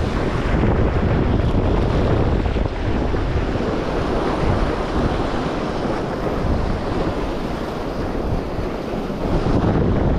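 Sea surf washing over a rocky shore, with strong wind buffeting the microphone.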